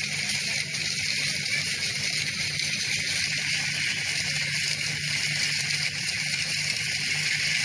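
Hailstorm: a dense, steady hiss of hailstones falling and striking a pebble beach.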